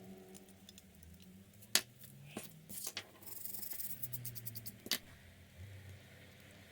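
A few sharp clicks and light knocks from handling the wrench and cleaning tools, the loudest a little under two seconds in. About three seconds in there is a brief burst of rapid ticking and hiss.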